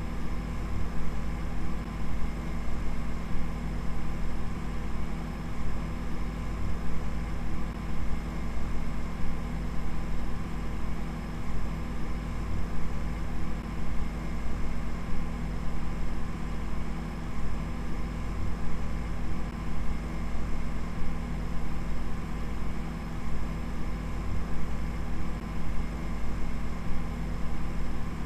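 A steady low hum with a deep rumble and several held tones above it, fluttering slightly in loudness.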